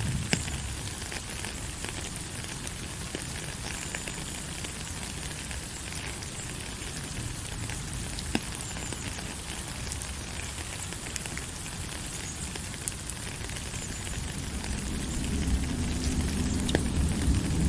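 Steady rain falling, an even hiss with scattered sharp drop ticks. A low rumble builds up over the last few seconds.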